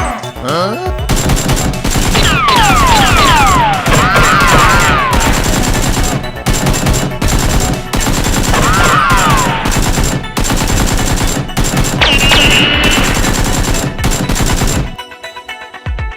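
Rapid, dense gunfire sound effects, machine-gun style, with a few falling whistling tones mixed in over background music. The firing stops suddenly near the end.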